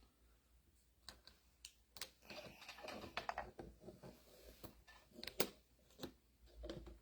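Small metal parts clicking and scraping as a snap ring is worked into its groove on a mini excavator's hydraulic pump, with a handful of sharp clicks and a stretch of rattling near the middle.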